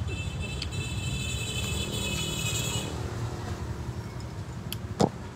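Steady low rumble of road traffic or a nearby vehicle. A high whine sounds over it for about the first three seconds, and there is one sharp knock near the end.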